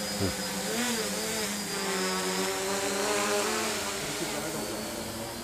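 Quadcopter's motors and propellers buzzing in flight, their pitch rising and falling as the throttle changes.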